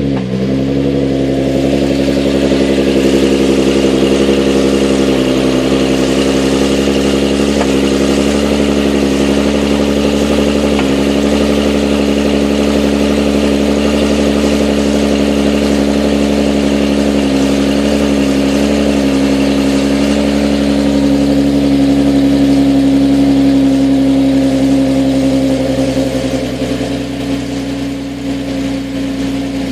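Nissan 370Z's 3.7-litre V6 fast-idling just after a cold start, running steadily, then easing down slightly near the end. The transmission is in its lightweight-flywheel idle-rattle condition, here damped by thick Redline MT-90 gear oil, which the owner finds cuts the rattle significantly.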